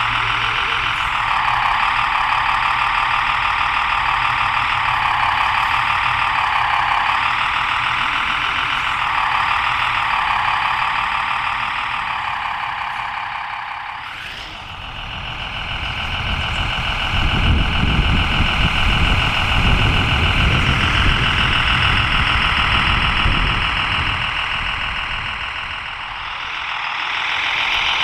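Simulated Unimog truck engine sound from a Servonaut SM3 sound module, played through the RC truck's small on-board speaker. Its pitch rises and falls with the throttle. There is a break about halfway, after which the tone runs steadier and a low rumbling noise joins for several seconds.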